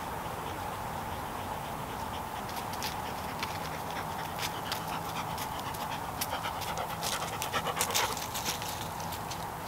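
Rough collie panting close by, with quick clicks that grow denser and louder toward the end.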